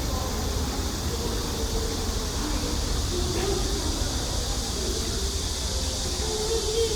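Steady hiss of running water in a park water-play fountain area, with faint voices now and then.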